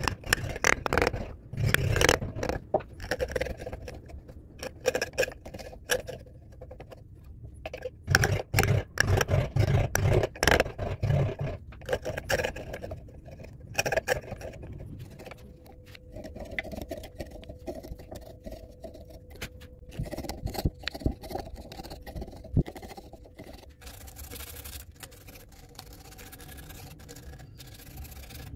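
Hand carving gouge cutting and scraping into wood in short, irregular strokes that come in bursts. A faint steady hum sounds through the middle, and near the end it gives way to softer hand-sanding rubs.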